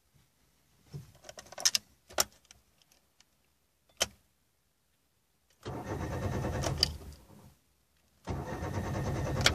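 Keys jangling and clicking at the ignition, then the Daewoo Matiz's starter cranking the engine for about two seconds, a short pause, and a second crank. The engine does not fire, because the fuel pump fuse has been pulled to relieve fuel-system pressure.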